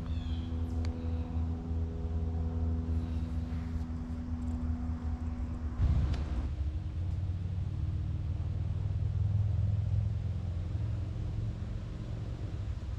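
A motor vehicle's engine running with a steady, pitched hum. About six seconds in it turns into a louder, heavier low rumble.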